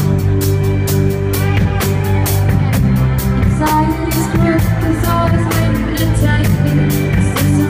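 Live band playing an indie rock song: a steady drum beat with sustained bass and guitar notes, and a woman singing into a handheld microphone.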